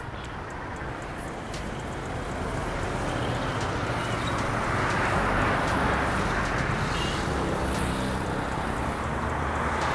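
Road traffic noise: a vehicle passing, its engine and tyre noise swelling toward the middle and easing off near the end, over a steady low hum.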